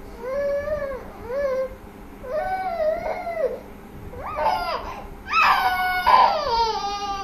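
Five-month-old baby crying in a run of short, rising-and-falling wails, each longer and louder than the last, the loudest near the end. The uploader calls this pretend crying, put on when the rattle stops.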